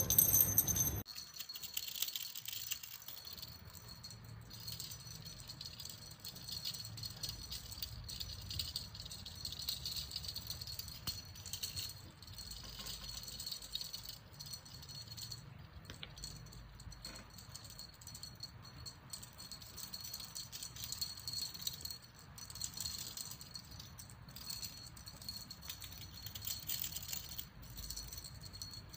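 A cat teaser wand toy with a small rattle or bell, jingling and rattling on and off as a kitten bats at it.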